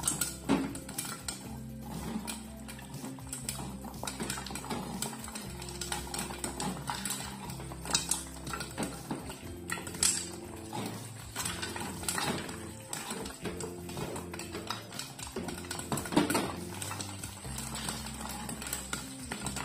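Popcorn kernels popping inside a covered aluminium stovetop popcorn popper while its hand crank is turned, the stirring arm clanking and scraping the sugar-coated kernels around the pan, a stiff crank. Background music plays underneath.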